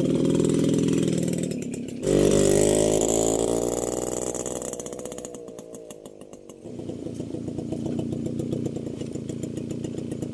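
Small motorcycle engine running while the bike is ridden on a dirt track, heard in several cut-together stretches. In the middle stretch it starts loud and fades away with the pitch shifting. In the last few seconds it runs steadily with a fast, even pulsing.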